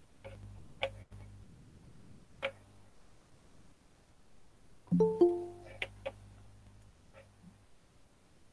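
A short electronic notification chime of a few quick notes sounds about five seconds in, as a new participant joins the video call. Before it come a couple of sharp computer clicks.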